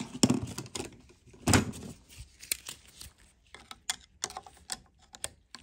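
Snap ring and clutch pack parts of a ZF 8HP55 transmission clicking and knocking as the snap ring is worked by hand toward its groove: two louder knocks in the first two seconds, then a run of lighter clicks.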